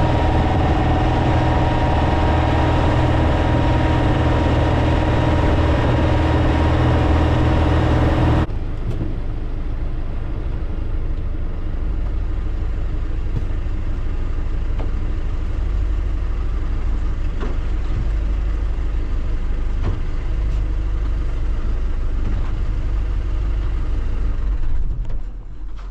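Boat engine running steadily under way. About eight seconds in, it gives way to a quieter, lower rumble as the boat comes off the plane, slowing to settle onto its drift.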